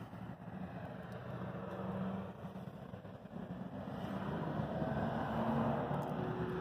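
A motor vehicle's engine running, a low rumble that grows louder about four seconds in.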